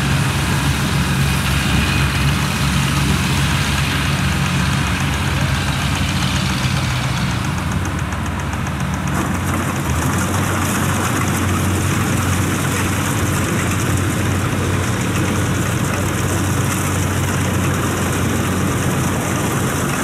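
Engine of a loaded tracked rice-hauling carrier running steadily as it crawls across harvested paddy; its low engine note shifts slightly about halfway through.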